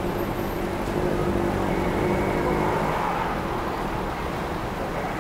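City street traffic: cars and taxis passing at a busy intersection, a steady mix of engine and tyre noise that swells slightly around the middle.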